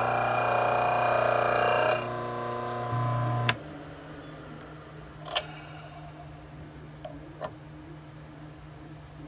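Drill bit ground on the sharpener's motor-driven grinding wheel, giving a steady ringing whine for about two seconds before the grinding stops. A low hum carries on until a sharp click about three and a half seconds in; after that it is much quieter, with a few small clicks as the bit holder is handled.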